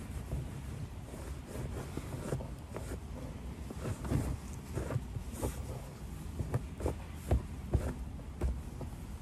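A towel rubbing over tall leather riding boots as they are wiped down, with scattered light knocks and thumps as the boots shift, most of them in the second half.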